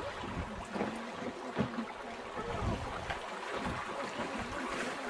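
Dunajec river water running around a wooden raft, with wind gusting on the microphone.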